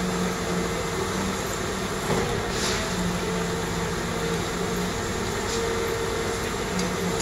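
Stadler FLIRT electric multiple unit approaching through a station: a steady rumble with a low electric hum that fades in and out.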